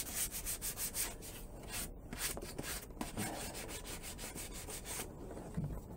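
A wooden whirligig part being hand-sanded with 150-grit sandpaper: quick back-and-forth rubbing strokes, about five a second at first, then fewer and more spread out, fading near the end.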